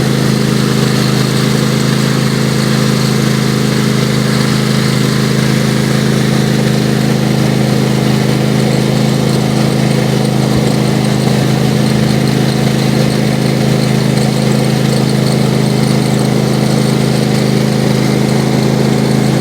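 Riding lawnmower's engine running at a steady speed as the mower drives slowly along.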